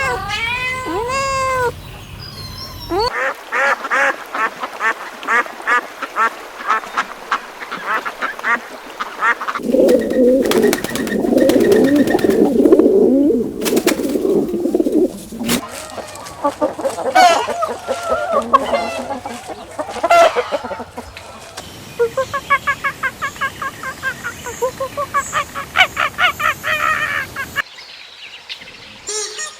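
Ducks quacking in several short clips cut together: rapid runs of repeated quacks, with a stretch of denser, lower calling in the middle.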